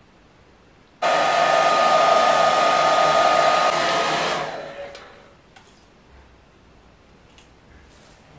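Hand-held hair dryer switched on about a second in, blowing with a steady whine over a rushing hiss for about three seconds, then switched off and winding down.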